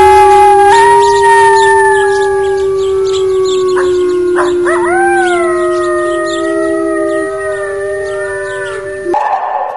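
Several canines howling together, long overlapping howls at different pitches. A new howl rises in about four and a half seconds in, and the chorus stops shortly before the end.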